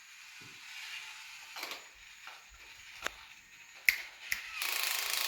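Plastic toy construction pieces being screwed together: scattered sharp clicks and rattles, then a steady rushing noise of about a second and a half near the end.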